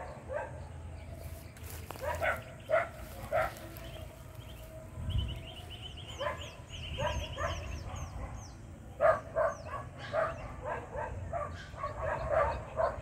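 A dog barking on and off in short repeated barks, most often in the last few seconds. In the middle, a quick run of about ten high, falling chirps.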